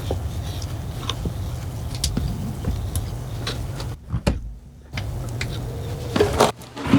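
A steady low hum with scattered light clicks and taps. It drops out briefly about four seconds in.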